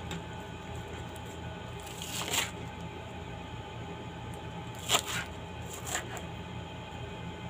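Kitchen knife slicing through crisp lettuce leaves on a plastic cutting board: a few separate crunching cuts, the sharpest about five seconds in, over a steady low hum.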